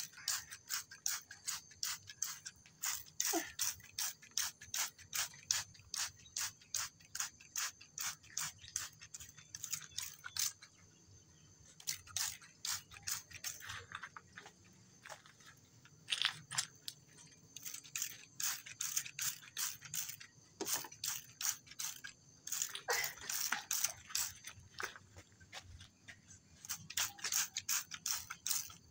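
Handheld trigger spray bottle being pumped over and over, each pull a short click and squirt of mist, about two or three a second in runs broken by brief pauses.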